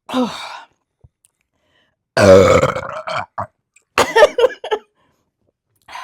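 A woman burping several times after chugging carbonated beer. A short burp comes at the start, then a long, loud, deep one about two seconds in, then a quick run of shorter burps.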